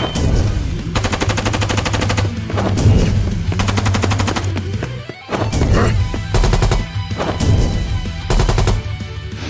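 Repeated bursts of rapid automatic machine-gun fire, a fight sound effect, over dramatic background music.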